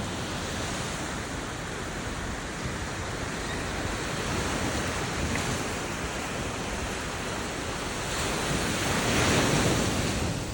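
Surf washing in steadily, with a wave swelling louder about nine seconds in.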